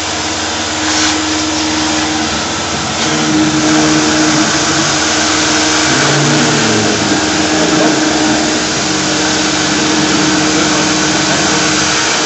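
A shop vacuum runs steadily, its hose nozzle held at the cutter to suck up UHMW polyethylene chips. Under it the Tormach PCNC 1100 milling machine's spindle runs an end mill through the plastic disc, its hum shifting in pitch as the cut goes on.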